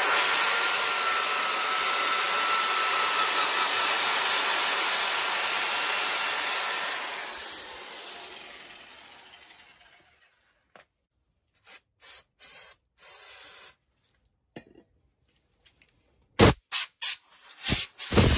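Power tool fitted with a metal wire brush scrubbing rust off a car's wheel hub: a steady, loud hiss with a thin whine, which winds down gradually over a few seconds once it is released, about seven seconds in. Several short, separate bursts of sound follow, the loudest near the end.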